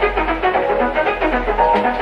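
Background music: brass over a sustained low bass note, with short repeated notes above.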